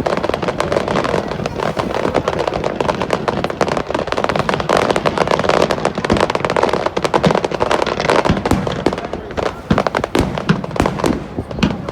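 Fireworks display: a dense barrage of shell bursts and crackling, thinning into separate sharp bangs in the last few seconds.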